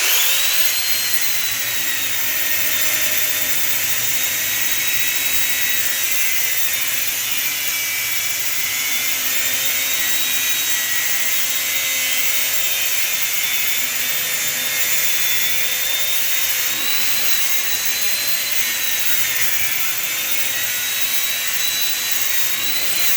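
Electric power tool spinning up and cutting through brass scrap metal, a steady high whine whose pitch dips slightly under load, then starting to wind down near the end.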